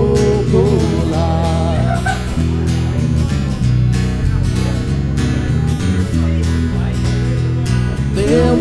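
Live country band playing the song between sung lines, with strummed guitar keeping a steady rhythm. A wavering melody line sits on top near the start and comes back near the end.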